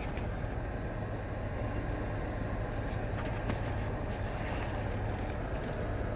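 Steady low hum and hiss inside a parked car's cabin with the car switched on, with a few faint clicks from handling the slides.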